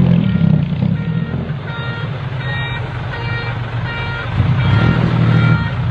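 Heavy truck engine running steadily under load, a low rumble that grows louder about two-thirds of the way through. Short high beeps repeat a little faster than twice a second from about one and a half seconds in.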